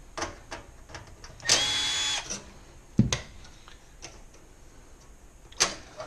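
A cordless drill/driver whines for under a second, about a second and a half in, as it backs a screw out of the range's metal lower skirt panel. A sharp knock comes about three seconds in and another near the end as the skirt is worked loose by hand.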